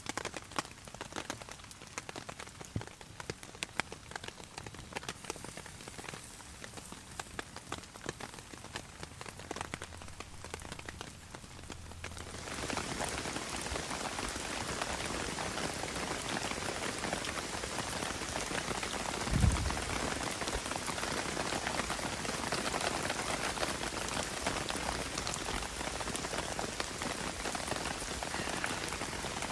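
Rain falling on a tarp: for the first twelve seconds or so, scattered drops tap, then it turns to a dense, steady downpour hiss. A single dull thump comes about twenty seconds in.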